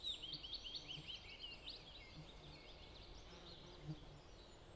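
Wild birds singing: quick runs of short high chirps and trills, loudest at the start and fading away over the first two or three seconds, over faint outdoor background noise.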